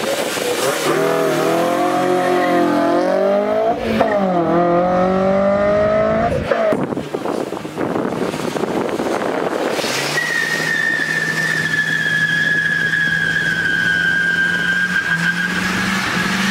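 A car's engine revving hard, its pitch climbing, dropping back about four seconds in and climbing again. From about ten seconds a long, steady tire squeal runs over a held engine note, as in a burnout.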